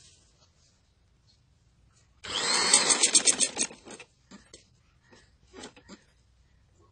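Sewing machine stitching a short run of about a second and a half, its needle strokes coming about ten a second as it slows to a stop. A few softer clicks and rustles follow as the fabric is handled.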